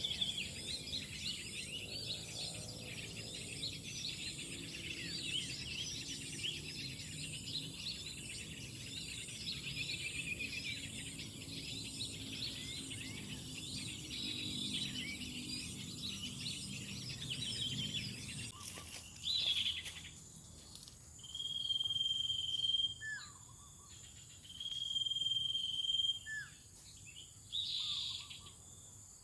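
Many birds chirping and chattering over one another in a dense flock chorus. About two-thirds of the way through this stops abruptly, leaving an insect's steady high trill in bursts of about two seconds, repeated, with short falling bird whistles between them.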